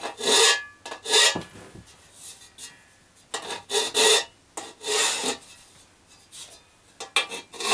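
A new hand file rasping on the edge of a metal dome's panel opening, filing away the small notches left by the cut tabs. It goes in a few separate strokes with pauses, then a quick run of strokes near the end.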